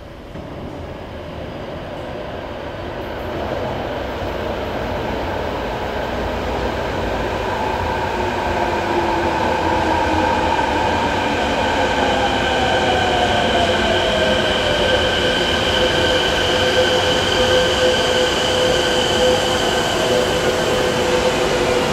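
Kobe Municipal Subway 1000-series train pulling into the station, growing steadily louder as it comes in. Partway through, a whine slides down in pitch as it slows.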